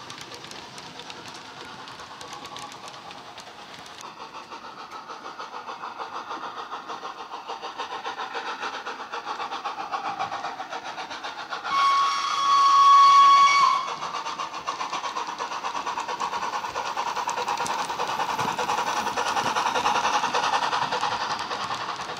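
Hornby A3 Flying Scotsman model's SWD U-Drive digital steam sound playing through its tender speaker: steady locomotive chuffing, with a short toot and then a longer whistle about twelve seconds in. The chuffing grows louder as the locomotive draws close.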